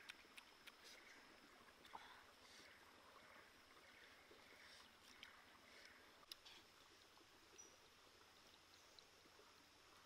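Near silence with faint, irregular mouth sounds of someone chewing food, and a few soft clicks.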